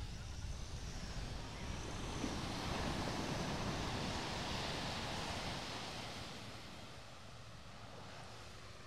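Ocean surf: a wave swells and washes in, loudest about three to five seconds in, then fades back.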